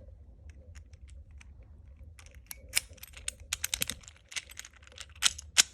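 Small metallic clicks and rattles from handling a Master Lock 410 padlock and its key. The clicks are sparse at first, then come thick and fast from about two seconds in, with the sharpest ones near the end.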